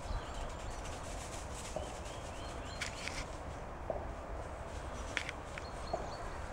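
Outdoor ambience: a steady low rumble of wind on the microphone, with a few faint, scattered bird chirps and a couple of light clicks.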